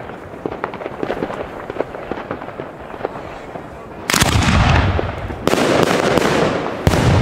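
4-inch aerial firework shells bursting overhead: three heavy booms, about four, five and a half and seven seconds in, each trailing off in a long rolling rumble. Before them, scattered distant firecracker pops and crackles.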